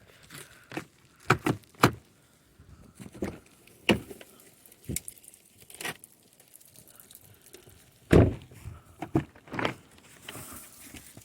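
Irregular sharp knocks, clicks and scrapes of ice being cleared off a car glazed by freezing rain, with a heavier thump about eight seconds in.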